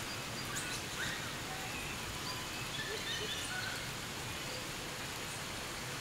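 Light rain falling steadily through forest foliage, with scattered short bird chirps, most of them in the first half.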